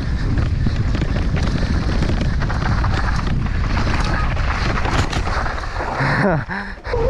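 Wind buffeting the microphone of a mountain biker's action camera, over the steady rumble and rattle of the bike running down a rough trail, with many small knocks.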